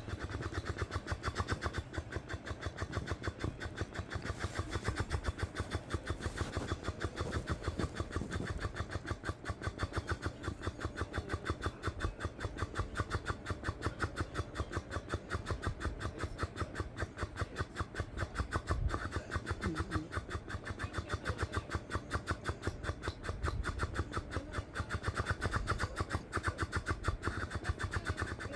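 CPAP air pressure from a nose-only mask escaping through an open mouth, flapping the lips or cheeks in a rapid, even flutter like a sputtering motor that won't start. It is the sign of a mouth leak.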